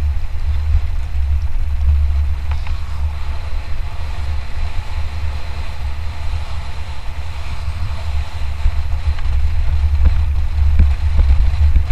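Wind buffeting the microphone of a camera on a mountain bike riding fast down a trail: a steady low rumble, with a few light knocks and rattles from the bike over rough ground near the end.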